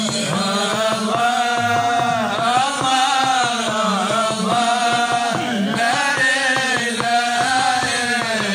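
Men's voices chanting a Sufi madih (devotional praise song) together, amplified through handheld microphones, with long held notes that glide up and down.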